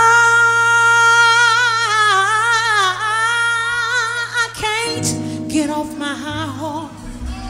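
A woman's soul vocal, belting a long held note with a wide vibrato and then breaking into quick melismatic runs. A live band holds sustained chords underneath, changing chord about five seconds in.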